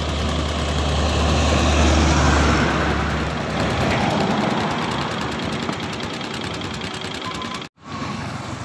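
A diesel dump truck passing close by: a low engine drone with tyre and road noise that swells to its loudest about two seconds in and fades after about three and a half seconds, leaving a lighter rush of more distant traffic. The sound breaks off briefly near the end.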